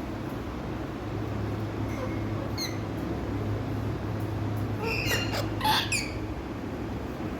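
Indian ringneck parakeet giving a couple of short chirps, then a quick cluster of squawking calls about five seconds in, over a steady low hum.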